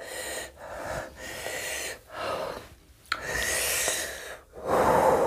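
A man breathing hard in and out through his mouth in a run of sharp, airy breaths, the longest about three seconds in. He is reacting to the burn of eating very spicy green chillies.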